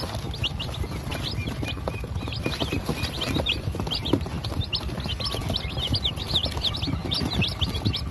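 Newly hatched Sasso chicks peeping continuously: many short, high peeps, each sliding down in pitch, overlapping from several chicks at once.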